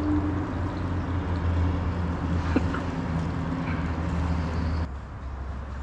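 Road traffic: a steady, low engine drone with a rushing hiss from passing vehicles, which drops away suddenly near the end.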